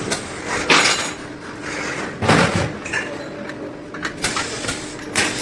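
Irregular metal knocks and clinks, a few hard strikes about a second or two apart, from sheet-metal parts being handled over a faint steady hum.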